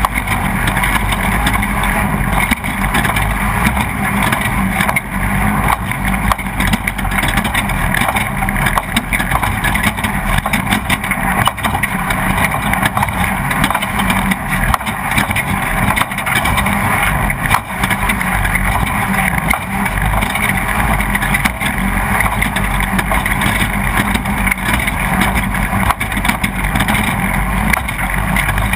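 Off-road race vehicle's engine running hard at racing speed, heard from on board, with constant rattling and knocks from the chassis over rough ground.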